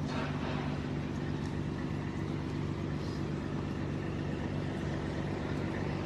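Steady low mechanical hum, with several pitches held over a noisy rush, unchanging throughout.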